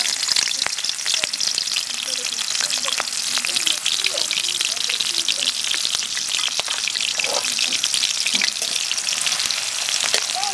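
Chopped onions sizzling and crackling in hot oil in an aluminium karahi, a steady dense sizzle.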